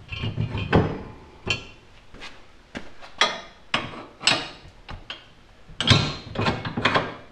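Irregular clanks and knocks of steel on steel, a dozen or so, as a compact bender is handled and seated on its wall-mounted steel bracket; some strikes ring briefly.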